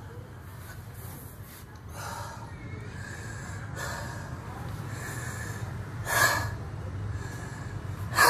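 A man breathing hard and gasping during nonstop burpees, with a forceful breath about once a second. Two louder sharp sounds come about six seconds in and at the very end, over a steady low hum.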